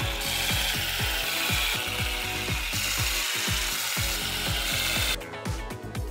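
Cordless power screwdriver running continuously for about five seconds, driving screws into a 3D-printed plastic gear housing, then stopping.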